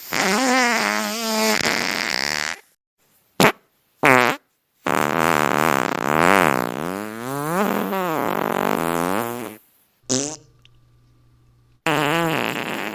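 A string of about six fart sounds divided by short silences. They run from brief pops to one of nearly five seconds whose buzzy pitch wobbles up and down repeatedly.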